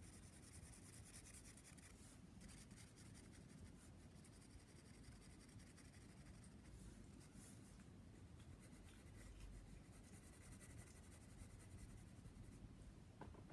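Faint scratching of a graphite pencil on sketchbook paper: short shading strokes.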